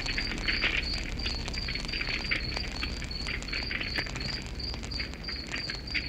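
Campfire crackling, with a cricket chirping steadily at about three chirps a second.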